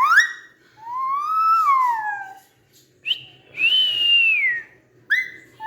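Pet parrot whistling: a string of about five loud whistled notes, some short sweeps and some long notes rising then falling in pitch.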